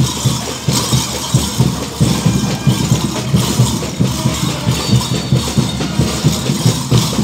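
Caporales dance music from a street band, with a steady drum beat, under the dense metallic jingling of the bells on the dancers' boots as they stamp and leap.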